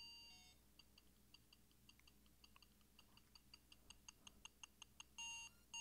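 Faint electronic beeping from a Snap Circuits toy's sound module and speaker. There is a beep, then a run of short pips that come quicker and louder, then two more beeps near the end.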